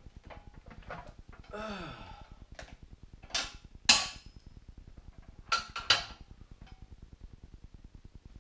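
Sharp metal clanks from the steel frames of a QuickJack portable car lift, in two pairs about four and six seconds in, over a faint rapid ticking.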